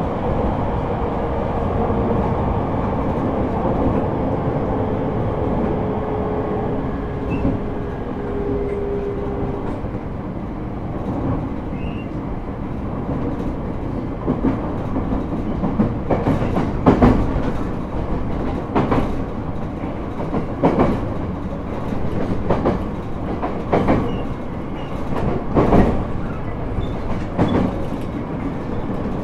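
Running noise inside a JR East E127 series electric train's motor car with Toyo GTO-VVVF traction gear. For about the first ten seconds a thin motor tone sinks slowly in pitch as the train brakes, then dies out. After that the train runs on with the wheels clacking over rail joints every second or two.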